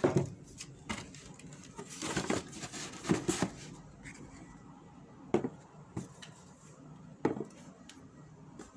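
Handling noise from a shoe box and shoes being handled: scattered sharp knocks and taps, with a stretch of rustling about two to three and a half seconds in.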